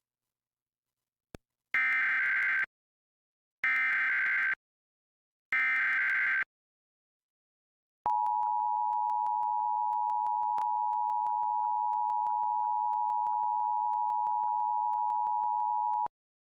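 Emergency Alert System tones: three short bursts of SAME header data, each a warbling digital squawk just under a second long with about a second between them. Then the EAS two-tone attention signal (853 Hz and 960 Hz sounded together) holds steady for about eight seconds and cuts off sharply. This sequence marks the start of an EAS Required Monthly Test.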